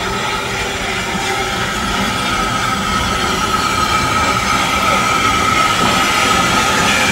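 Steam tank locomotive 30075, an 0-6-0T, rolling slowly in toward the platform, a rumbling running noise that grows gradually louder, with a steady high squeal over it.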